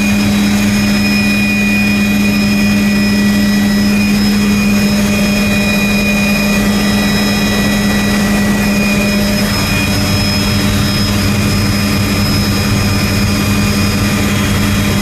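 Helicopter in flight, heard from inside the cabin: a loud, steady drone of engine and rotor with a steady high whine over it.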